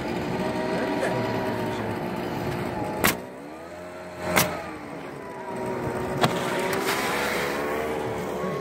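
An engine running steadily, its pitch wavering slightly, with three sharp snaps, about three, four and a half and six seconds in.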